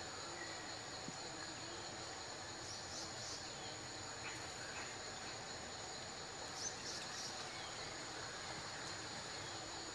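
Steady high insect drone in the background, with a few brief high chirps about three seconds in and again near seven seconds.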